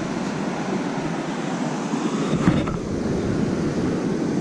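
Steady rushing noise of ocean surf and wind, with a single short click about two and a half seconds in.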